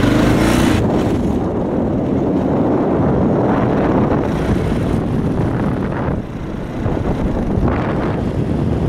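Wind buffeting the microphone of a moving vehicle, with engine and road noise underneath; the rush swells and dips a few times.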